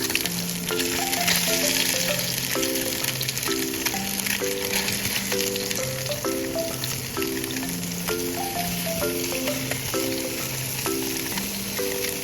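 Drained tofu frying in sesame oil in a frying pan over high heat: a steady sizzle with fine crackles. Gentle background music with held notes plays along.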